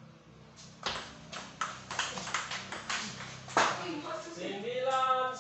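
Table tennis rally: a fast run of sharp clicks as the ball is struck by the paddles and bounces on the table, ending with the loudest hit about three and a half seconds in. A long drawn-out shout follows near the end as the point is won.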